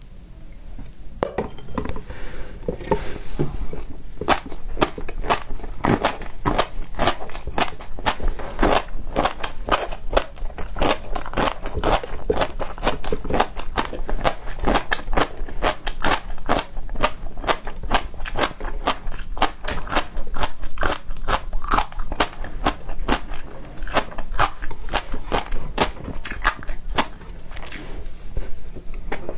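Close-miked eating of seafood: a continuous run of crunching bites and chewing, with dense rapid crackles.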